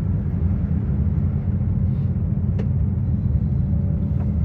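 Steady low rumble inside a moving aerial tramway cabin as it travels along its cables, with a faint click about two and a half seconds in.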